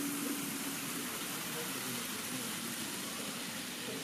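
Steady hiss of room ambience with faint, indistinct voices in the background.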